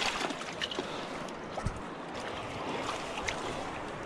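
Steady wash of moving water, with a few faint clicks and one soft low thump a little under two seconds in.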